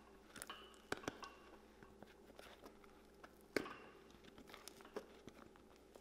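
Outsole of a work boot being pulled off the welt with pincers, the sole stitches and glue giving way: faint tearing and crackling with a few sharp snaps, the loudest about three and a half seconds in.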